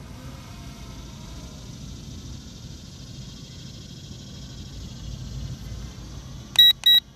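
Two short electronic beeps close together near the end, each one clear high tone and much louder than the rest, over a steady low background noise.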